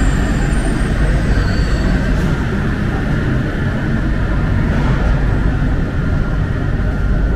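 Alstom MP-05 rubber-tyred metro train running, a loud steady rumble, with a thin steady whine coming in near the end.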